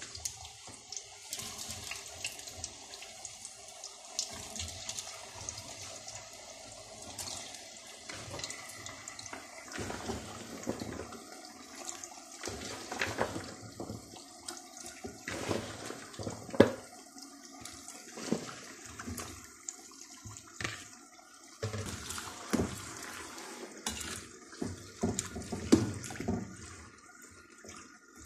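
Potato strips deep-frying in hot oil: a steady sizzle with frequent sharp crackles and pops, a few of them loud.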